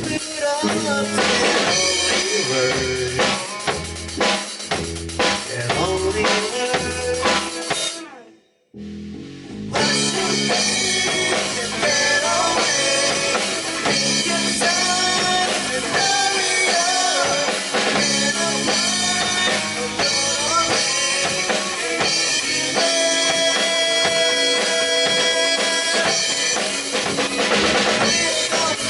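A band playing a rock song, with the drum kit prominent under guitar, bass and keyboard. About eight seconds in the music fades and drops out for a moment, then the full band comes straight back in.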